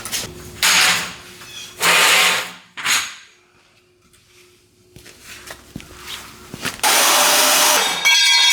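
Power drill run in short bursts: two brief runs and a very short one in the first three seconds, then a longer run of about a second near the end and one more short burst.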